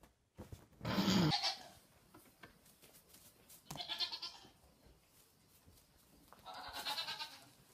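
Young goat bleating three times, each a short quavering call about three seconds apart, the first the loudest.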